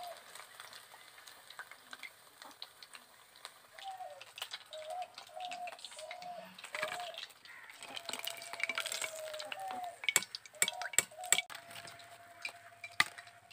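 Fried cauliflower pakoras being lifted out of hot oil with a wire skimmer and dropped into a wire basket: faint sizzling oil with metal clinks and taps, and several sharp clinks near the end. A short chirping tone repeats on and off in the background.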